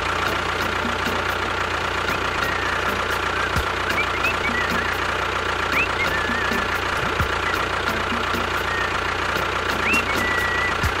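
Tractor engine idling with a steady, even knock. A few short high chirps sound faintly over it.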